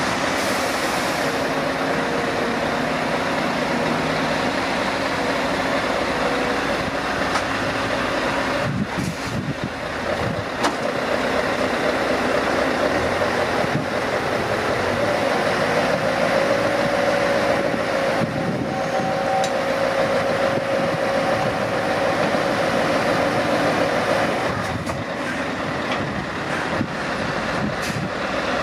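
Heavy diesel engines of a Scania tipper truck and a Liebherr wheeled excavator running steadily at a loading site. There is a burst of clattering knocks about nine to eleven seconds in, and a steady whine from about sixteen to twenty-four seconds in.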